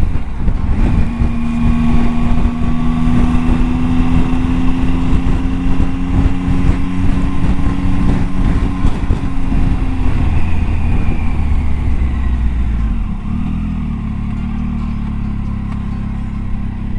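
Triumph Tiger 800 XCA's three-cylinder engine running at a steady cruise, with wind buffeting the microphone. About twelve seconds in, the throttle eases off and the engine note drops and quietens as the bike slows.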